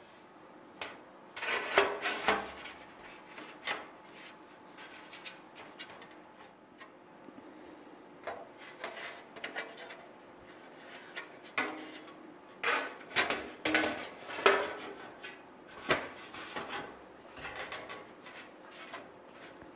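Thin aluminum sheet-metal false spar being slid and pressed into place against wing ribs by hand: irregular scraping and rubbing with short knocks, loudest about two seconds in and again from about twelve to sixteen seconds in.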